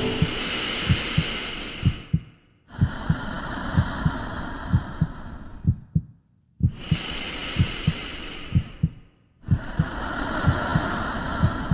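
Heartbeat sound effect, a steady lub-dub of low thumps about once a second, over slow breathing: long rushing breaths broken by short silences.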